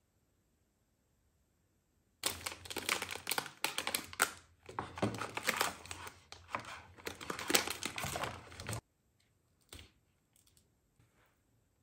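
Plastic packaging of an instant-noodle cup crinkling and crackling as it is handled and pulled open, starting about two seconds in and stopping abruptly after about six and a half seconds, followed by a few faint ticks and taps.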